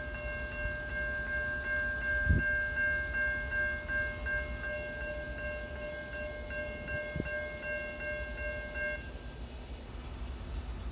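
Horn of an approaching Norfolk Southern SD70ACe locomotive, one steady note held for about nine seconds and then stopping. There are two dull thumps, the louder one about two seconds in, over a low rumble.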